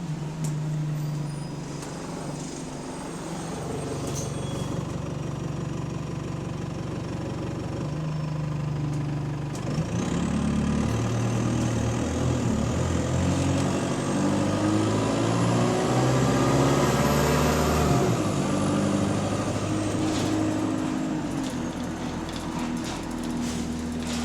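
Diesel bus engine heard from on board, a bus whose exhaust is developing a leak. It runs steadily at first, then about ten seconds in it pulls away, its note climbing in steps through the gear changes with a high whine rising alongside. Near the end it eases back to a steady lower note.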